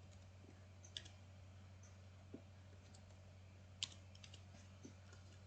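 A few faint, sharp clicks from working a computer's mouse and keys, the clearest about a second in and just under four seconds in, over a low steady hum.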